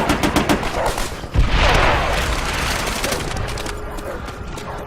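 Added WWII battle sound effects: a rapid burst of machine-gun fire stops about half a second in. A loud blast follows about a second later, then continuing battle noise.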